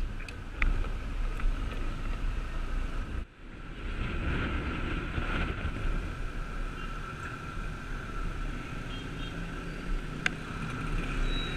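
Honda Click scooter's engine running while riding, with wind noise on the microphone. The sound drops out briefly about three seconds in.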